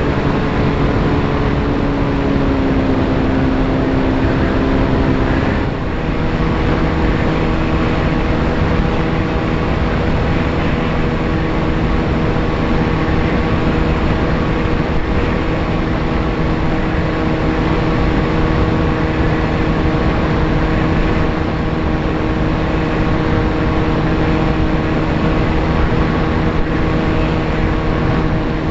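VAS Chimera FPV plane's electric motor and propeller running in flight, a steady pitched whine under heavy wind rush on the microphone. The motor's pitch sags over the first few seconds, shifts suddenly about six seconds in, then holds steady.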